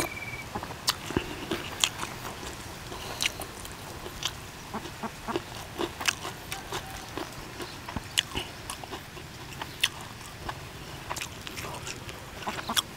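Close-up chewing and crunching of a mouthful of duck larb with crispy skin: irregular crisp crunches and mouth clicks, a few each second.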